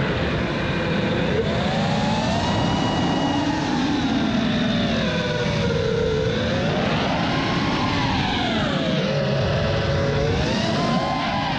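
Brushless motors and propellers of a 5-inch FPV quadcopter (T-Motor F40 Pro II 2400kv on Gemfan 5152 props) whining, the pitch rising and falling with the throttle as it banks and dives, over a steady rush of air noise.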